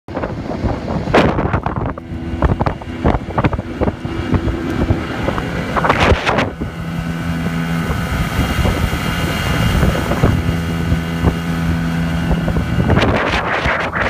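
Mariner outboard motor running steadily at speed, a constant engine drone under the rush of wind on the microphone. Several sharp knocks sound in the first few seconds, and the wind noise swells near the end.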